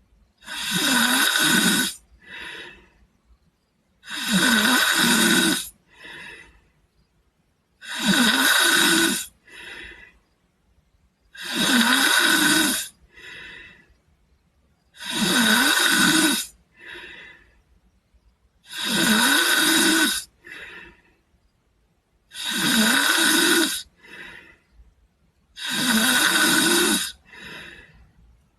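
A sleeping boy snoring in a steady rhythm: eight loud snores come about every three and a half seconds, each lasting over a second. Each snore is followed by a short, softer breath.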